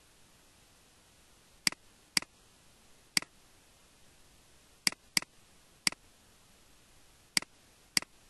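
Computer mouse button clicking: eight sharp clicks at uneven intervals, each a press followed at once by a softer release, over a faint steady hiss.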